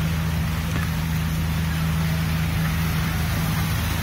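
Passenger ferry's engine running steadily underway, a low even drone with a constant hum, over a steady rushing hiss.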